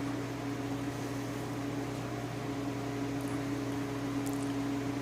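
Steady background hum of a running machine, with a low drone held at a constant pitch, and a couple of faint light clicks about three and four seconds in.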